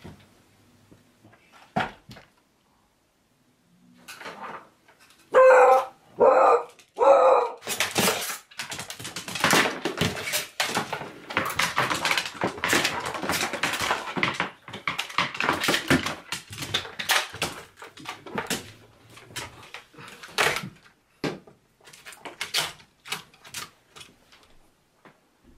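A beagle barks three times about five seconds in. Then comes a long stretch of irregular clattering and scuffling as it wrestles a plastic skeleton across a wooden floor, with plastic bones knocking and claws scrabbling, thinning out near the end.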